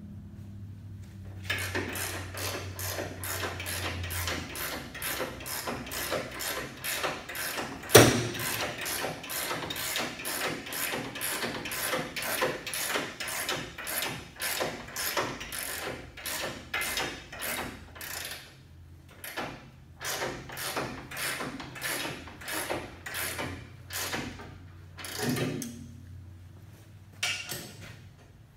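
Hand ratchet running a nut down the threaded rod of a homemade coil-spring compressor, clicking in quick, even strokes two to three times a second, with a few short pauses near the end. There is one sharp metallic clank about eight seconds in. The spring is being compressed to take its tension off the control arm.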